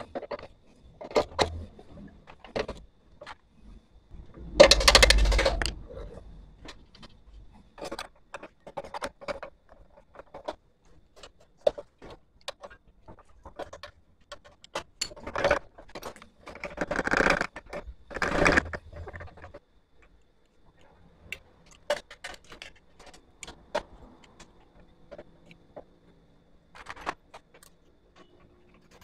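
Metal motorcycle parts and hand tools clinking and clattering as they are handled and fitted. The sound is a string of irregular sharp clicks and taps, with longer rattling passages about five seconds in and again about three-quarters of the way through.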